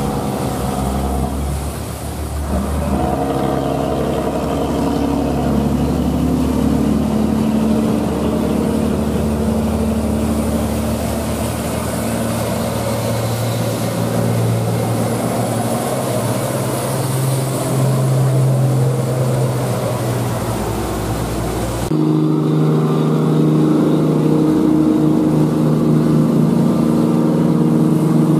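Heavy diesel truck engines labouring uphill: a steady low drone of stacked engine notes whose pitch drifts up and down. About 22 seconds in the sound changes abruptly to another engine.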